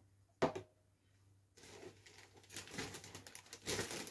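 A short sharp click about half a second in, then a plastic carrier bag rustling and crinkling as it is rummaged through, growing louder toward the end.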